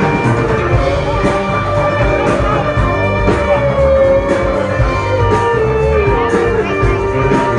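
Live rock band playing loudly, with a long held lead note that bends up and down in pitch over guitar and a steady beat.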